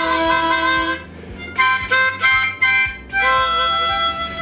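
Harmonica playing a short blues riff: a held chord for about a second, four quick short notes, then a long held note.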